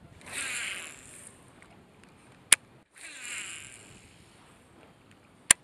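Fishing reel whirring twice, each spell about a second long, and each followed by a single sharp click.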